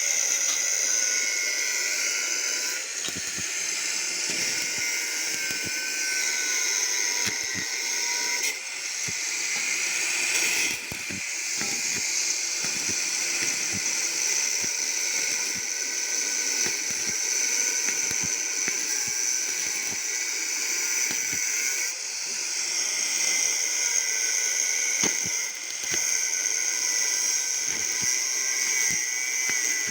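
Electric arc welding: the arc runs as a steady, crackling hiss while a weld is laid.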